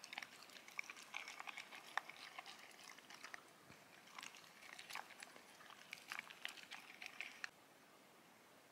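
Dog eating kibble and wet food from a bowl: faint, irregular crunching and smacking of chewing, stopping about seven and a half seconds in.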